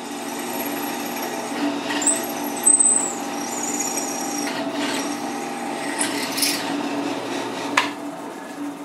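Drill press running with a twist bit drilling through three clamped 6061 aluminum parts: a steady motor hum, with thin high-pitched whines coming and going as the bit cuts, and a short click near the end.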